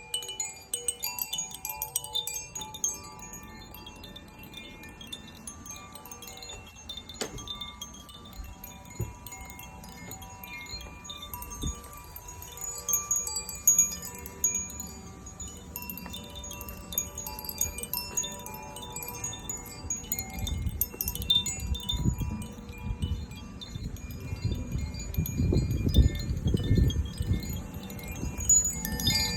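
Tuned chimes ringing continuously: many overlapping high, sustained tones with tinkling strikes. A low rumbling noise rises underneath in the last ten seconds.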